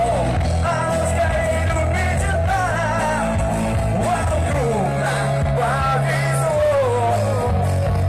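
Cover band playing an upbeat rock-pop song through stage PA speakers, a lead singer's voice carrying the melody over a steady bass line.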